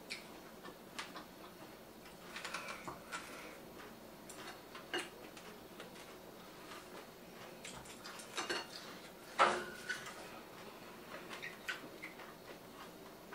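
Close-miked eating sounds: scattered small clicks of chewing and lip smacking, with occasional taps of chopsticks and a spoon on ceramic bowls. One louder knock comes about nine and a half seconds in.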